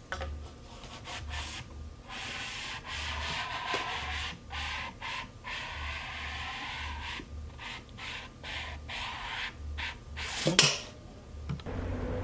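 Repeated rasping, rubbing strokes, stopping and starting every second or so, with one sharp knock about ten and a half seconds in.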